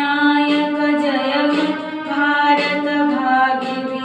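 Portable electronic keyboard playing sustained notes, with a new note or chord struck about once a second, and a woman singing along.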